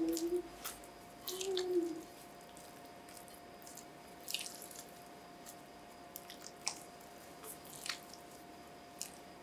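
Silicone spatula folding macaron batter in a glass bowl: scattered wet squelches and short scrapes against the glass as the batter is pressed and folded.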